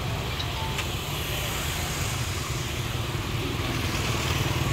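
A steady low rumble, with a faint click about a second in.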